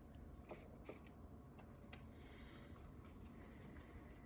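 Near silence, with a few faint clicks and soft rustles of trading cards being handled.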